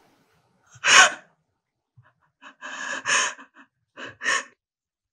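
A crying woman's sharp, gasping breaths in short bursts: one about a second in, a longer one around three seconds, and a quicker pair near the end.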